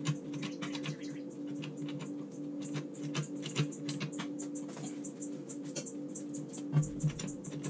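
Hydraulic floor jack being pumped by its handle to lift a car: a run of irregular light clicks and knocks from the pump strokes, with two heavier knocks near the end.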